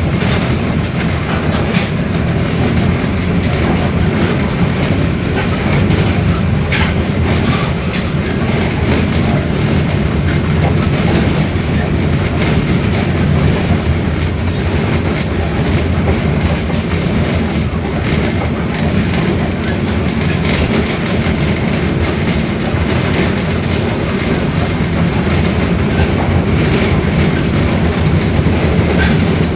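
Mercedes-Benz OF-1721 BlueTec 5 bus chassis running on the road, heard on board as a steady loud drone with a growling differential, with frequent short rattles and clicks from the bodywork.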